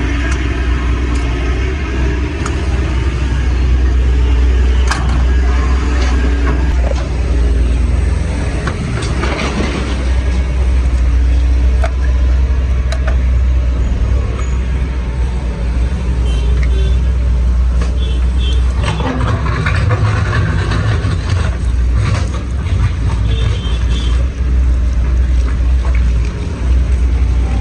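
Excavator engine running steadily with a heavy low rumble, with scattered knocks and clanks from the breaker working rock.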